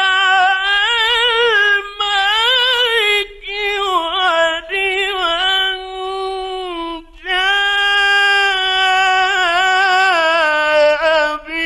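A man reciting the Quran in a high, ornamented voice, holding long melismatic notes in the melodic Egyptian mujawwad style, with short breaks for breath about three and seven seconds in. It is an old radio recording.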